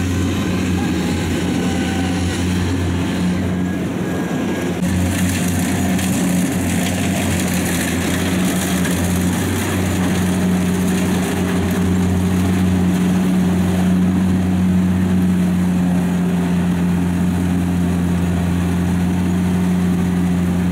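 Diesel engine of a Kubota combine harvester running steadily under load, a constant low drone that grows somewhat stronger about halfway through.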